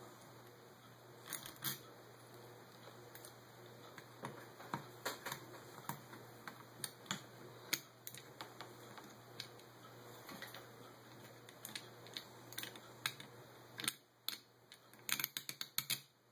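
Light, scattered clicks and taps of small metal parts and a screwdriver on a Holley 600 carburetor as its choke housing is unbolted and taken apart. The clicks come in a quick cluster near the end.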